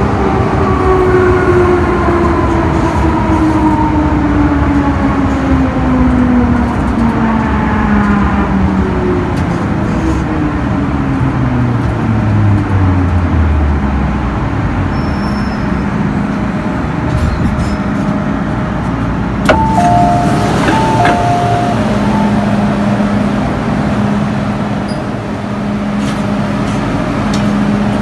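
MTR Island Line M-Train electric multiple unit braking into a station, its traction motors whining steadily down in pitch until the train stops about halfway through. After a few seconds a sharp click comes, followed by a two-tone door chime of alternating beeps, then a steady low hum.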